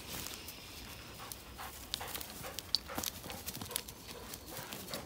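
A Weimaraner panting, with footsteps crunching dry leaves and needles and snapping twigs on the forest floor, giving many short sharp cracks.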